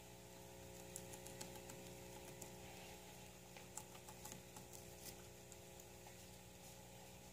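Faint, irregular crunchy clicks of a guinea pig chewing leafy greens, over a steady low electrical hum.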